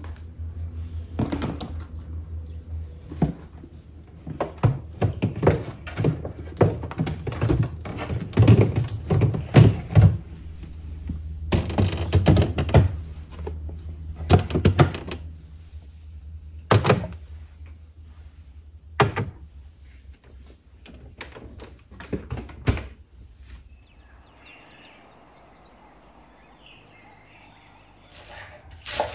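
Plastic food storage containers clunking and clattering as they are set into a refrigerator's crisper drawer and onto its shelves: a run of irregular knocks and thunks. For the last few seconds this gives way to faint outdoor ambience.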